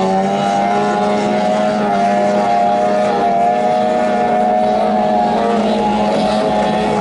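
15 hp outboard motor of a small racing boat running at full throttle, a loud steady high-pitched drone that wavers slightly in pitch.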